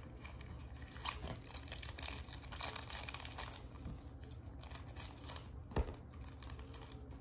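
Small cardboard toy box being torn open by hand and a plastic wrapper crinkled as it is unwrapped: a run of irregular rustles and small tears, with one sharper click near the end.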